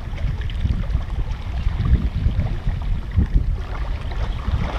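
Wind rumbling and buffeting on the microphone, with water lapping close by.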